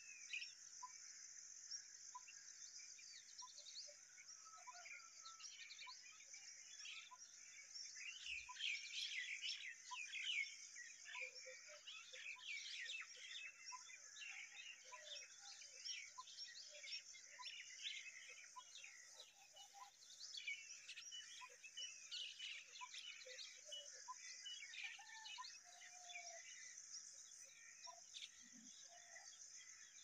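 Faint outdoor ambience of small birds chirping, with a steady high hiss and a faint short note repeating about once a second.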